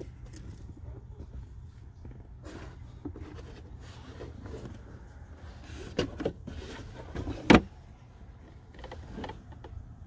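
Removed plastic glove box assembly of a 2016 Mercedes-Benz S550 and its wiring being handled: scattered clicks, rustles and knocks over a steady low hum, with two sharp, louder knocks about six and seven and a half seconds in.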